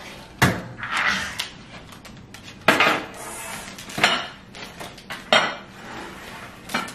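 Kitchen clatter of dishes and cutlery: plates and utensils knocked and set down on a counter in about six separate clinks and knocks.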